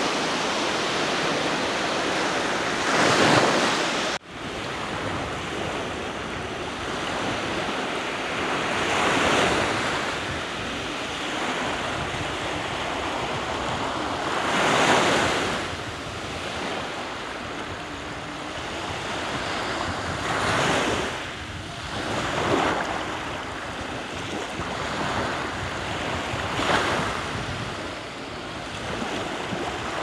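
Small Black Sea waves breaking and washing up a sandy beach: a steady hiss of surf that swells as each wave runs in, about every five to six seconds. The sound cuts out for an instant about four seconds in.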